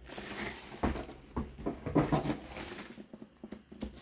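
Laptop packaging being handled: bubble wrap and a cardboard box rustling, with a few light knocks in the first half, quieter near the end.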